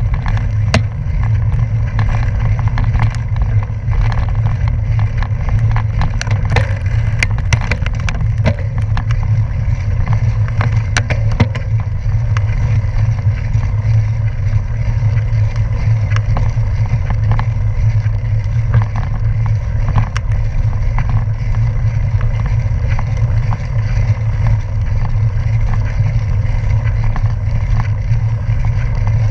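Bicycle rolling along a gravel road: a steady low rumble of tyres on loose gravel mixed with wind on the microphone, with scattered sharp clicks and rattles of stones and bike parts through the first dozen seconds or so.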